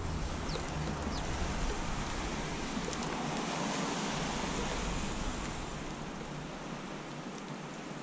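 Steady outdoor hiss on the camera's microphone, with a low wind rumble that eases off after about five seconds. A couple of faint, short high chirps from small birds come near the start.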